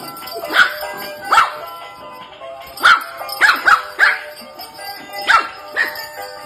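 Small puppy giving high, yappy play barks, about eight at uneven intervals, with a faint tune playing underneath.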